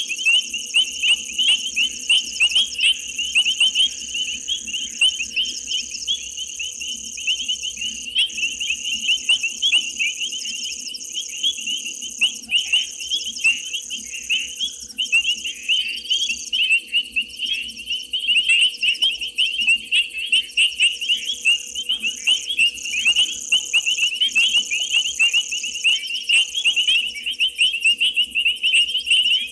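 Night chorus of frogs and insects: a dense, shrill, fast-pulsing trill with a higher, steadier buzz above it that stops and starts several times. A faint low steady hum runs underneath.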